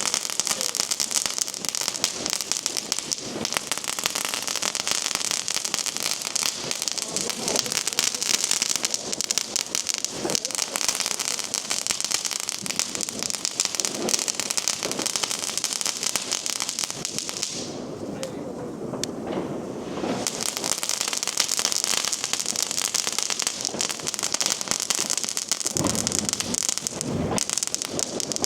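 Crackling firework cake going off: a dense, continuous crackle from the Nico Angry Rabbits category 1 crackling cake. The crackle eases for about two seconds partway through, then picks up again, with a few deeper thumps near the end.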